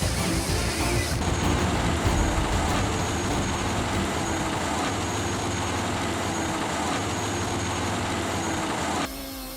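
A large engine-driven machine running steadily under load, with dense mechanical noise. The sound changes abruptly about a second in and drops sharply just before the end.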